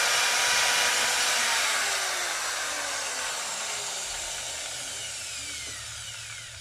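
Electric drill boring a hole through the wooden speaker box panel for the wire. Its motor whine gradually falls in pitch and fades before stopping at the end.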